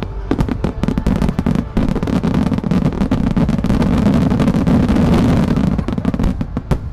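Fireworks grand finale barrage: loud, rapid, overlapping bangs from firework shells and fan-shaped star-mine volleys, merging into a continuous crackling din. It is densest in the middle and thins to a few separate bangs near the end.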